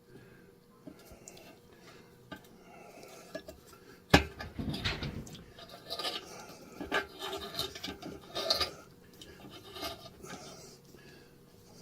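Hand tools on a metal engine block: a few light clicks, then a sharp metallic clank about four seconds in, followed by several seconds of irregular scraping and rubbing on metal.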